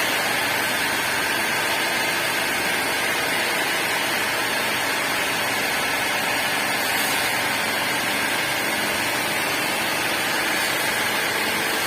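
Industrial cutting machine running steadily: an unbroken loud hiss with no pauses or changes.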